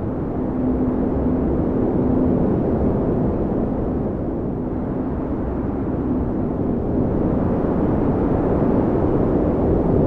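Strong blizzard wind blowing, a steady low rushing rumble, with a faint whistling tone rising out of it twice.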